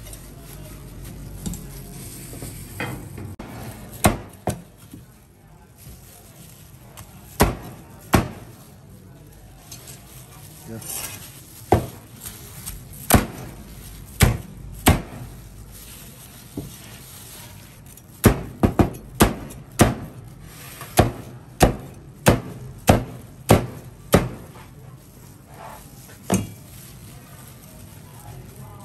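Cleaver chopping through crispy breaded fried squid onto a plastic cutting board. It gives single sharp knocks at uneven gaps, then a quicker run of chops, about two a second, in the second half.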